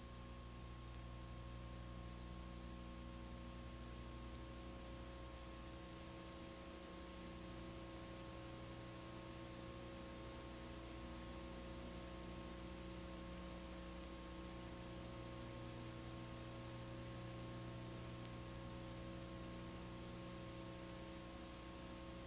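Faint, steady electrical hum made of several held tones over a light hiss, with nothing else happening.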